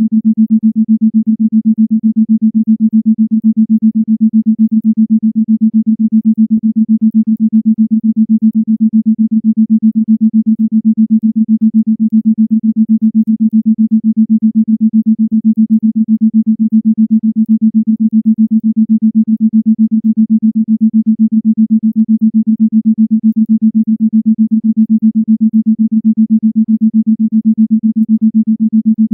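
Isochronic tone: a single low electronic tone pulsed on and off in a fast, even beat.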